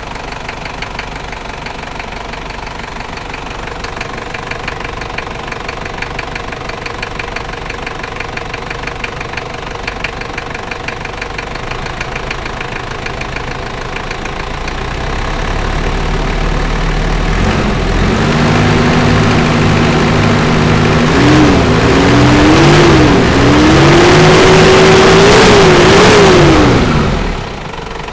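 Toyota 1KZ-T four-cylinder turbodiesel idling with a regular knock, then revved up in several steps for about ten seconds before dropping back to idle near the end. It is a new engine with an unwanted noise, cause not yet known.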